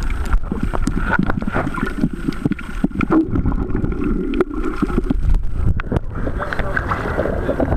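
Muffled sea water moving around a handheld camera underwater: sloshing and bubbling with many small clicks and knocks, giving way to surface splashing near the end as the camera comes out of the water.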